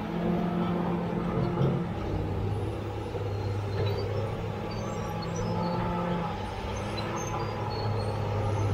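CAT D7G crawler bulldozer's six-cylinder diesel engine running steadily under load as the machine pushes a large boulder along a dirt track.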